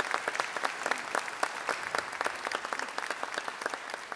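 Congregation applauding: many hands clapping in a dense, even patter.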